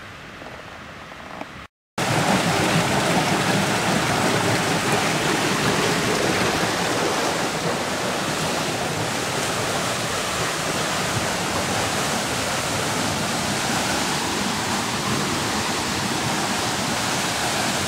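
A steady, loud rushing noise that starts abruptly about two seconds in, after a brief total drop-out, and holds evenly to the end.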